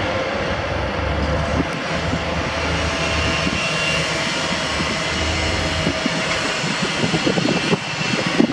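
Newag Dragon 2 six-axle electric locomotive running light and approaching slowly: a steady running noise with a low hum and a faint high whine.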